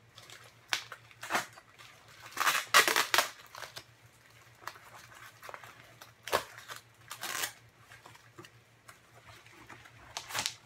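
Cardboard box and its packing being cut and torn open by hand: irregular bursts of cutting, tearing and crinkling paper, the loudest cluster about two and a half to three seconds in.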